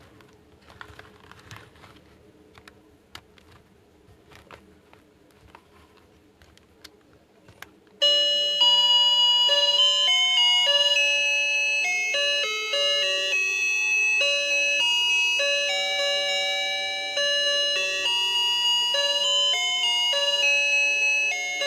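Light clicks and taps of small plastic pieces being handled. About eight seconds in, a loud electronic chime tune starts suddenly and plays on, a simple melody of clean, bell-like notes.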